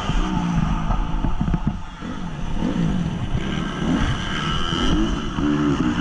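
2014 Honda CRF 250's single-cylinder four-stroke engine revving up and down repeatedly as the throttle opens and closes, with a short dip in loudness about two seconds in.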